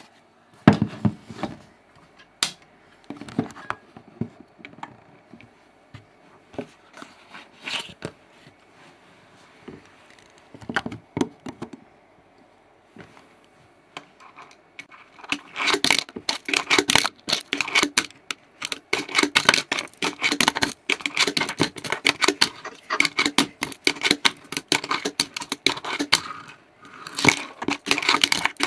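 Fingerboard clacking on a tabletop and cardboard ledge: scattered taps and knocks for about the first half, then a long stretch of dense, rapid clattering of the small deck and wheels.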